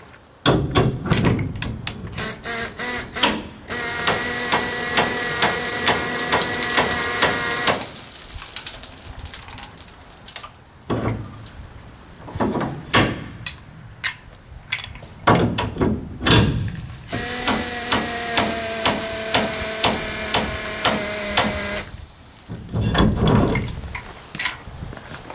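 Pneumatic trap turner, an air-powered non-impacting drive tool, running twice for about four seconds each: a loud air hiss with a whine and steady rapid ticking as it turns the hopper trailer's trap drive shaft. A few short trigger blips come before the first run, and metal clicks and clanks of the tool being handled on the trap come between the runs.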